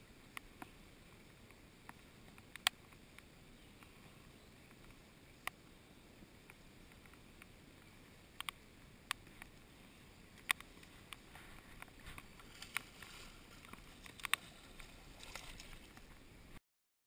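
Faint steady hiss with irregular sharp ticks on the GoPro's housing, which come more often near the end as a hooked bass thrashes and splashes at the surface.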